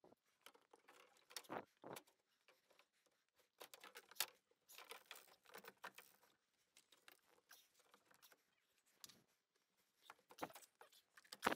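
Faint scattered clicks, rustles and light knocks from PVC drain pipe and a long-sweep elbow being handled and pushed into place, with a sharper knock near the end.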